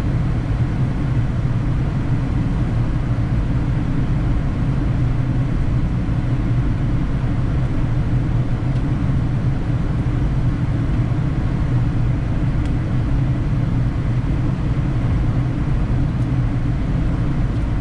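Steady low rumble of flight-deck noise in a Boeing 787 Dreamliner on final approach, unchanging throughout.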